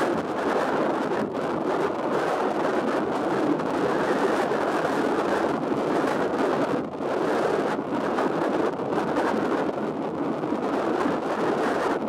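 Strong wind blowing, a steady rushing noise that swells and eases slightly, dipping briefly about seven seconds in.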